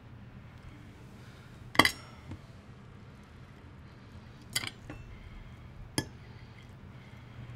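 Tableware clinking three times, sharp and ringing; the first, about two seconds in, is the loudest. A low steady hum runs underneath.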